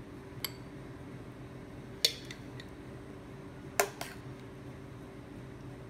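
A metal spoon clinking against glass about four times as rice pudding and mango are spooned into drinking glasses, the clinks about two seconds in and near the four-second mark the loudest. A steady low hum lies under it.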